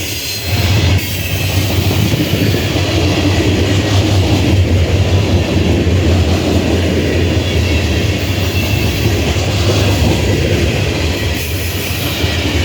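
Coal train rolling past: a loud, steady rumble of wheels on the rails, with some high-pitched wheel squeal over it.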